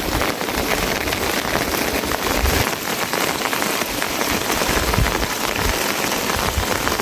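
Heavy rain falling steadily on surfaces, a dense even hiss with many close drop ticks.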